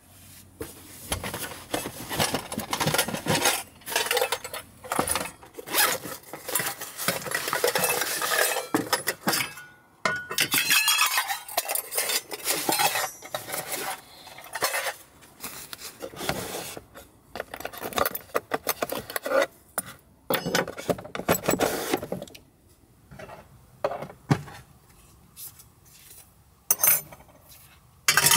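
Stacked stainless steel sierra cups being handled and set down on a wooden tabletop: irregular metal clinks and clatter, with stretches of rubbing. The sound is busiest in the first two thirds and turns to sparse clinks near the end.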